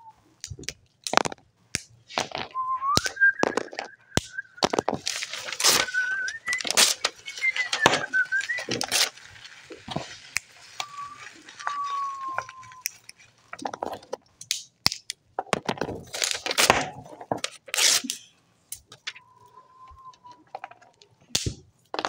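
Children's home-made forest soundscape: several whistled notes imitating birds, some gliding up and some falling, over many sharp cracks and snaps like twigs breaking, with a hiss through the first half.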